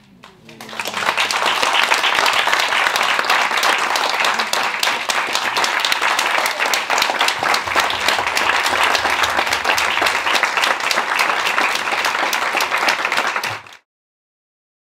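Audience applauding: dense, steady clapping that builds within the first second, then cuts off abruptly near the end.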